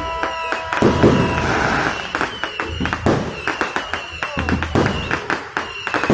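New Year's fireworks going off in many quick bangs and pops, over crowd voices.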